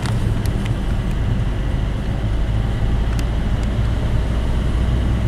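Car engine running and tyre noise on the road, heard from inside the cabin while driving. A few light clicks come through, mostly in the first second and once around three seconds in.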